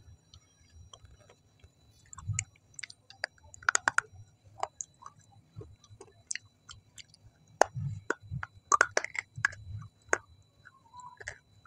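Close-miked chewing of food: irregular wet smacks and sharp clicks of the lips and tongue, busiest in two spells, with a few dull low thuds.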